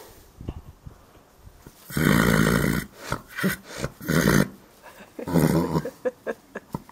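A paint horse lying flat asleep, snoring loudly in three rough breaths: a long one about two seconds in, a short one about four seconds in, and another about five and a half seconds in.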